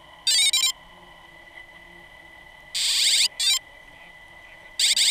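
Electronic ringtone-like tones in three short groups of bursts: about a second in, around three seconds in, and near the end. A faint steady high-pitched whine runs underneath.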